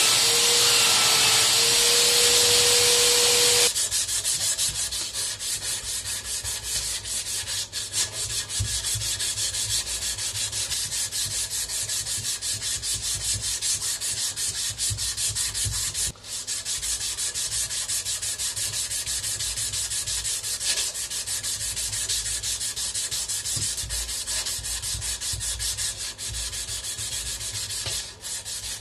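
Bench belt sander running with a steady whine while a wooden tool handle is held against its belt. After about four seconds it gives way to hand sanding: a strip of 180-grit sandpaper drawn back and forth around the wooden handle, a rhythmic rubbing that goes on with only brief pauses.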